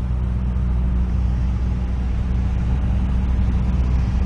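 Cessna 172 single-engine airplane's engine and propeller running steadily in cruise, heard inside the cabin.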